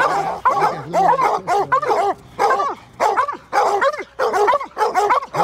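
Several hounds baying a bobcat they hold at bay on the ice: a loud, unbroken run of overlapping barks from more than one dog.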